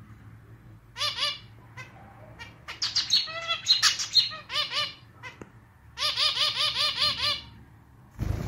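Male zebra finch singing its song in clarinet-like, slightly out-of-tune notes. It comes in short bouts, the last a quick run of about ten repeated notes. A low thump sounds just before the end.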